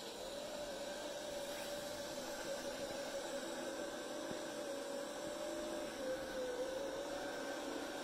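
Eureka Groove robot vacuum running on carpet: a steady whir of its suction motor and brushes, with a hum that wavers slightly in pitch as it moves.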